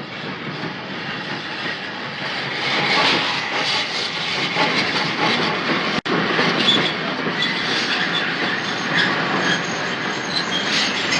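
Steam train pulling into a station, with a steady noise of wheels running on the rails. The sound breaks off for an instant about six seconds in.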